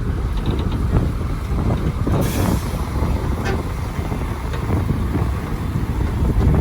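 Heavy diesel dump truck engine running with a low, rough rumble, with a short hiss about two seconds in.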